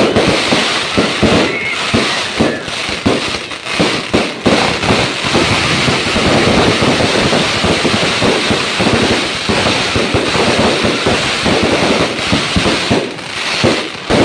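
Fireworks going off in a dense, rapid barrage: loud bangs and crackles following one another almost without a break, thickest in the middle.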